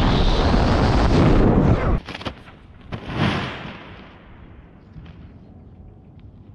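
Loud wind rushing over the microphone of a BASE jumper's camera in freefall. It cuts off abruptly about two seconds in, and a second, shorter rush of wind follows about a second later.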